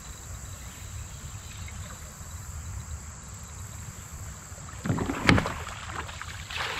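Water splashing in a shallow river: a short flurry of splashes and knocks about five seconds in, with a smaller one near the end, over a low rumble of wind on the microphone.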